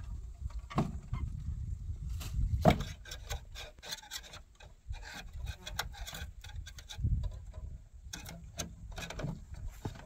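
Wooden door slats knocking and scraping as they are handled, a string of short clicks and rubs with one louder knock about two and a half seconds in.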